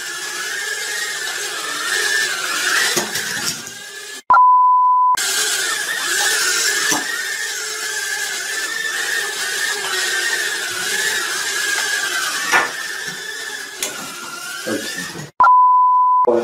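Toy mini quadcopter drones buzzing with a high propeller whine that wavers in pitch as the throttle changes, with a few short knocks. Twice, about four seconds in and near the end, the drone sound cuts out and a steady electronic bleep of about a second plays.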